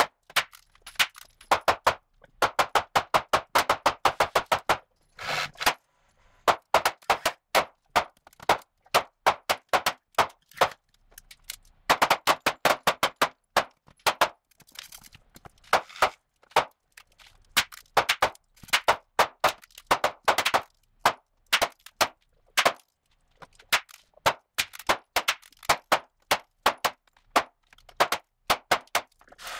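Ruger Mark IV Competition pistol firing Norma .22 LR rounds in quick strings of sharp shots, with short pauses between strings.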